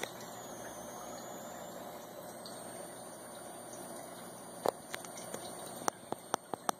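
Aquarium air stone bubbling: a steady watery hiss, with a quick series of sharp clicks in the last two seconds.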